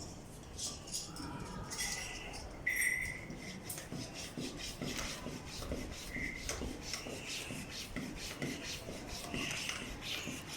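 Bicycle tyre pump worked by hand in quick, even strokes, each stroke a scraping rush of air, with a couple of short squeaks along the way.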